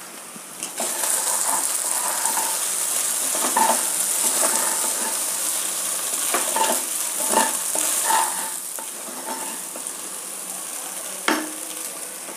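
A mixture of chopped greens, onion and rice flour sizzling in hot oil in a pot while a spatula stirs and scrapes it, with irregular knocks of the spatula against the pot. It is being stir-fried so the tempering coats it well.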